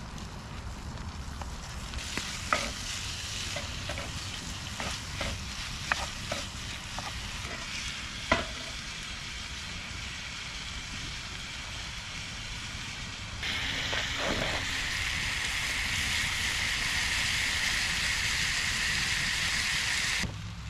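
Steak, onion and red pepper frying in a cast iron pan, with a utensil stirring and knocking against the pan now and then. About thirteen seconds in, a louder steady sizzle takes over and cuts off suddenly near the end.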